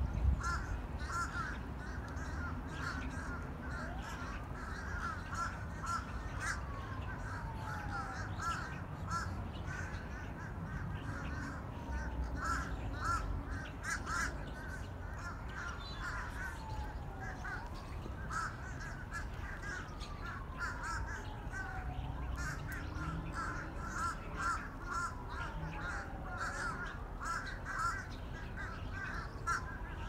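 A flock of gulls calling without a break: dense overlapping squawks, with a longer call that falls in pitch every few seconds.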